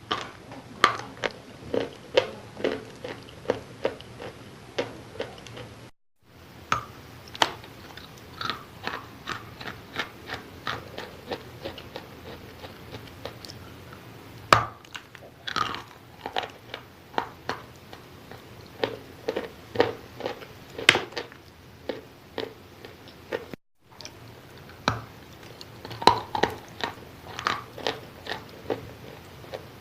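A person chewing wet chalk close to the microphone: a steady run of crisp, wet crunches, about two to three a second. The sound cuts out completely twice for a moment.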